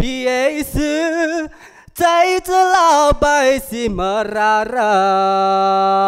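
A man singing solo and unaccompanied, in phrases broken by short breaths, then holding a long steady note that starts to waver in vibrato near the end.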